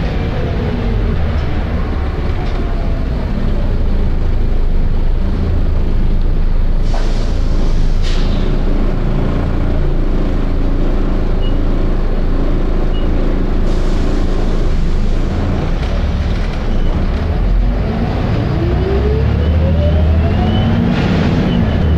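Volvo B7RLE single-decker bus's six-cylinder diesel engine and drivetrain heard from on board. A whine falls at the start as the bus slows. A short burst of air hiss comes about seven seconds in. A whine rises near the end as the bus pulls away.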